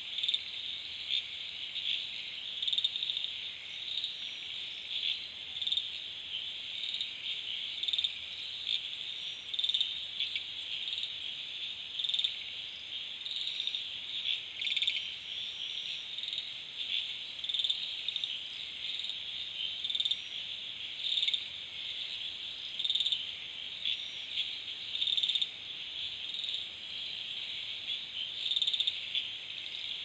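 Dense night chorus of crickets and other insects, with frogs among them: a high, unbroken trilling that pulses unevenly.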